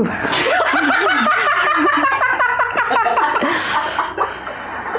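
Two men laughing hard, a long run of quick repeated laughs that eases off a little near the end.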